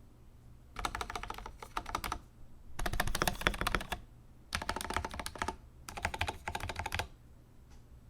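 Typing on an Akko 5075S mechanical keyboard with lubed and filmed Gateron Milky Yellow linear switches on a polycarbonate plate. The keys clack in four quick bursts of typing separated by short pauses, the second-to-middle burst the loudest.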